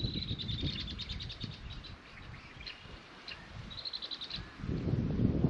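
Red-winged blackbirds singing, with rapid high trills at the start and again about four seconds in, and single calls in between. A low rumble of noise comes in near the end.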